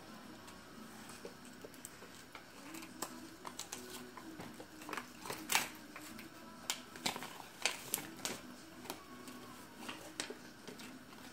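Folded paper leaflet being unfolded and handled: crinkling and rustling with scattered sharp crackles, busiest in the middle.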